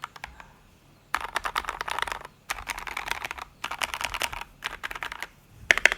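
Fast typing on a Maxfit61 mechanical keyboard in an aluminium case, with lubed Gateron Black linear switches and MT3 keycaps. The keystrokes come in several quick runs with short pauses, starting about a second in, and a louder flurry comes near the end.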